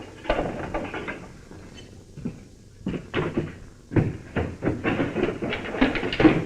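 Jail cell door being shut and locked: a run of knocks, clicks and metal clatter, with a quieter pause in the middle and a denser clatter in the last few seconds.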